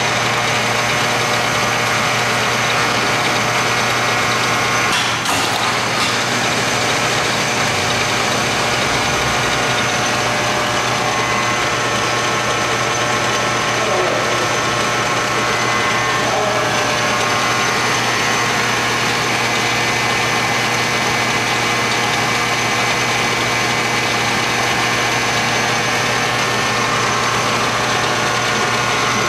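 Hardinge HLV-H toolroom lathe running steadily under power, a constant mechanical hum with several held tones. A couple of clicks come about five to six seconds in.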